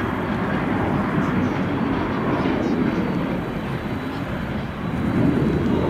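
Twin jet engines of a Japan Airlines Boeing 767-300 taxiing: a steady rumble and hiss that dips slightly and then swells again near the end.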